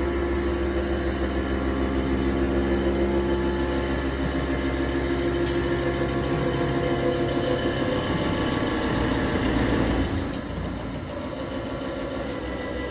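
CNC gantry milling machine running: a steady machine hum made of several held tones, which shifts and drops slightly in level about ten seconds in.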